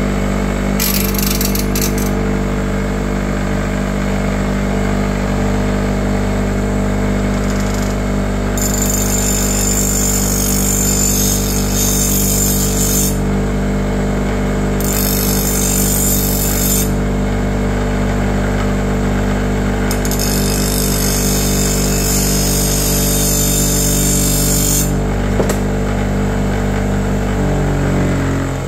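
Bench grinder running steadily while a steel plane blade is pressed to the wheel in four spells of high, hissing grinding, grinding the chip out of its edge. Near the end the motor's hum falls in pitch as the grinder winds down.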